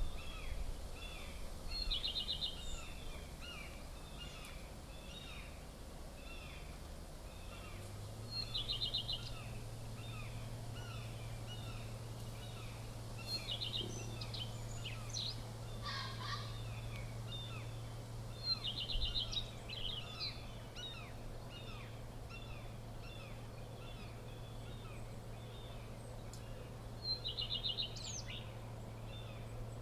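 Outdoor background of small birds chirping in a quick, steady series, with a short high trill that recurs five times, several seconds apart. A steady low hum sets in about a quarter of the way through.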